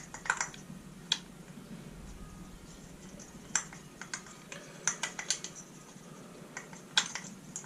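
Irregular light clicks and taps of small plastic and metal parts being handled while a backpack leaf blower's recoil starter is put back together.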